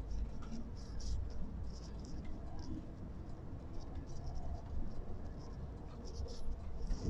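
Cabin sound of a Laksana All New Legacy-bodied coach on the road: a steady low engine and road rumble, with light rattling and creaking of the interior fittings scattered through it.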